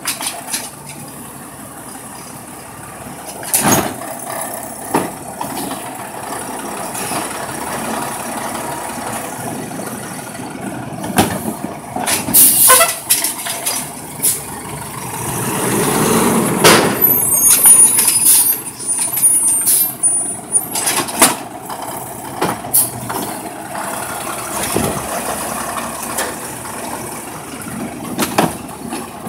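Natural-gas side-loader garbage truck at work: the engine runs and swells in a long rise about halfway through as the automated arm works. Knocks and clanks of wheeled trash carts being gripped, lifted and tipped into the hopper come through it.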